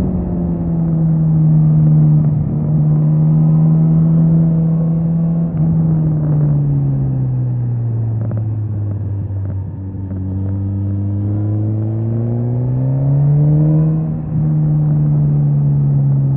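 Suzuki GSX-S 1000's inline-four engine under way, holding a steady note, easing off to a lower pitch around the middle, then pulling back up. Its pitch breaks briefly about fourteen seconds in, like a gear change.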